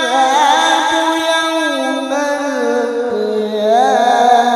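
Male qori reciting the Quran in the melodic tilawah style through a microphone: one long unbroken phrase with wavering ornaments, its pitch stepping down twice.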